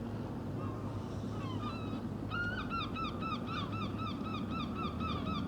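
A gull calling: a long run of short, rapidly repeated notes, about four a second, starting a little over two seconds in, over a low steady background hum.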